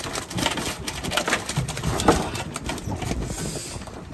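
Irregular clicks and rustling as a mesh bag of spiny lobsters is handled, the lobsters scrabbling against the bag and the deck, with a couple of brief faint squeaks.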